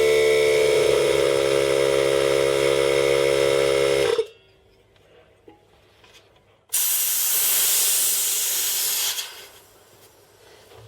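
Stanley DN/8/5 portable air compressor's motor and pump running with a steady pitched drone, cutting off sharply after about four seconds. A couple of seconds later, compressed air hisses out for about two and a half seconds and tails off.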